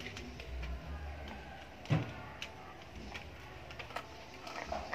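Plastic toy vehicles being handled and set down on stone paving: scattered clicks, with a single heavier knock about two seconds in.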